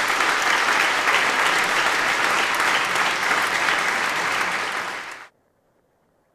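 Audience applauding steadily in a concert hall at the end of a performance. The applause fades briefly, then cuts off abruptly about five seconds in.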